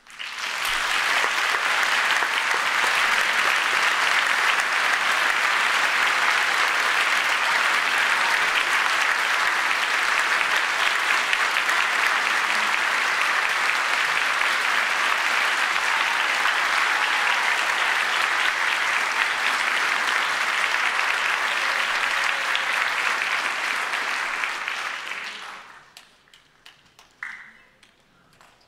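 Audience applauding in a concert hall: the applause starts suddenly, holds steady for about twenty-five seconds, then dies away into a few scattered claps near the end.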